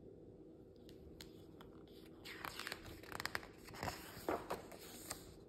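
A picture-book page being turned by hand: paper rustling and crinkling in several quick bursts over about three seconds, after a couple of faint clicks.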